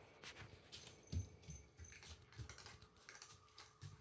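Faint, irregular clicks and taps with a few soft low thumps, from a German Shepherd and a red tabby cat moving about.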